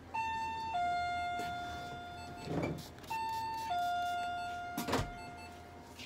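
An electronic two-tone chime, a short higher note then a longer lower note that fades, sounding about every three seconds. Two short hisses from a hand-pump spray bottle come between the chimes, about two and a half and five seconds in.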